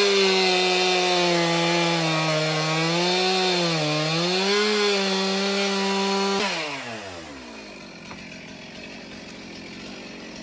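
Two-stroke Stihl chainsaw at full throttle cutting into a thick log, its pitch sagging briefly under load. About six and a half seconds in the throttle is released and the engine winds down to a much quieter idle.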